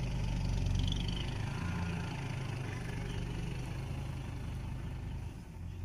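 Diesel engine of a loaded six-wheel dump truck running as the truck pulls away: a steady low drone that eases slightly toward the end.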